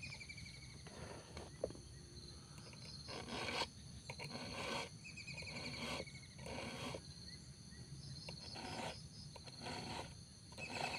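Round chainsaw file rasping across the cutters of a chainsaw chain in slow, uneven hand strokes, about five or six of them a second or two apart, during hand sharpening.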